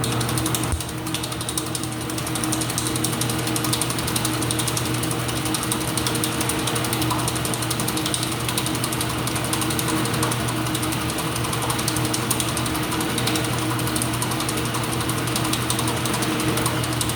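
Ipso top-load washing machine running mid-cycle: a steady motor hum with fast, dense mechanical clicking and rattling over it.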